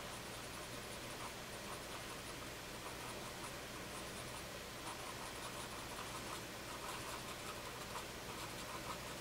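Cotton swab (Q-tip) rubbing graphite into paper to blend a pencil drawing: faint, short, scratchy rubbing strokes, coming more often in the second half.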